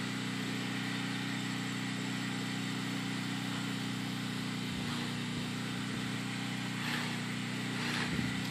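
An engine running steadily at constant speed: a low, even drone.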